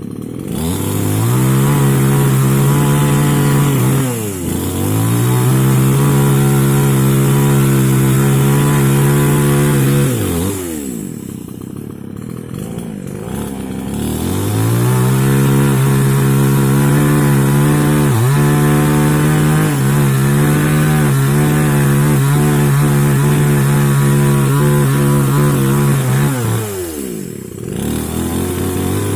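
Small two-stroke mini chainsaw held at full throttle in three long stretches, a few seconds, then about five and about twelve, dropping back to a low idle between them, as when cutting wood.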